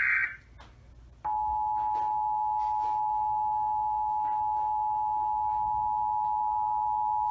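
The tail of an Emergency Alert System SAME data header burst, a harsh warbling screech, ends just after the start. About a second later the EAS two-tone attention signal (853 Hz and 960 Hz together) comes on and holds as a steady, unwavering dual tone. It is the alert tone that precedes a spoken warning message.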